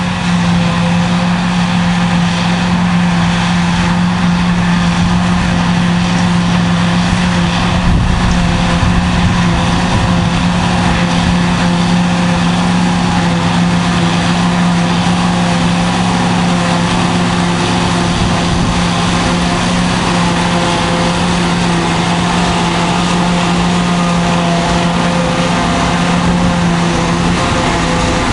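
Diesel engine of John Deere silage-harvesting machinery running steadily at constant revs, a loud even drone.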